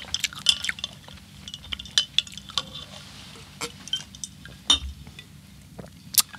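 Tall drinking glasses of mojito clinking and tapping as they are handled and sipped from, many short sharp clinks, some with a faint glassy ring.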